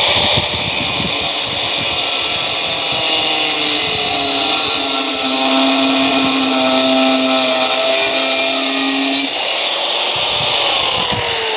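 Corded angle grinder cutting through steel rebar: a loud, high-pitched grinding that stops about nine seconds in, after which the motor runs free and spins down with a falling whine near the end.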